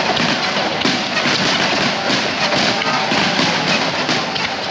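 Starmine fireworks barrage: shells bursting and crackling in quick succession, several reports a second, with music playing underneath.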